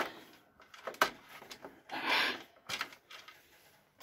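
Faint handling noises around a riding mower's engine: a few sharp clicks and a short rustling scrape, with no engine running or cranking.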